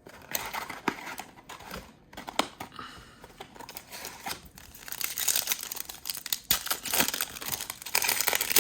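The wrapper of a Panini Prizm basketball trading card pack being torn open and crinkled: a dense run of crackles that grows louder about five seconds in.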